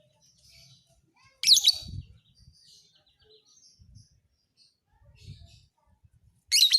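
Lovebird calling: two loud, shrill bursts of rapid chattering, one about a second and a half in and another near the end, with softer scattered chirps between them.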